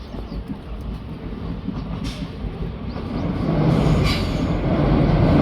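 A passing train approaching on the line, its running noise growing steadily louder from about three seconds in.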